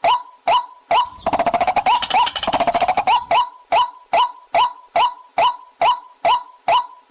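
Recorded waterhen call, as used for a hunting lure: a short call repeated evenly about twice a second, with a rapid rattling chatter over it from about one to three and a half seconds in.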